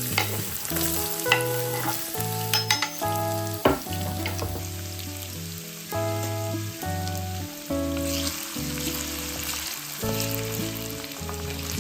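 Food sizzling in a frying pan as it is stirred, a utensil clicking against the pan a few times in the first few seconds, over background music.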